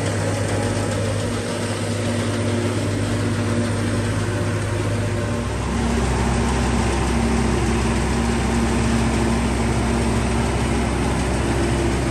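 Farm tractor engine running steadily under load. About five and a half seconds in its low hum drops in pitch and grows a little louder.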